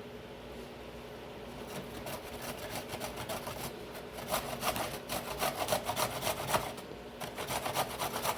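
Knife cutting vegetables (cabbage or carrots) on a cutting board: quick, repeated scraping strokes that get louder and faster about four seconds in.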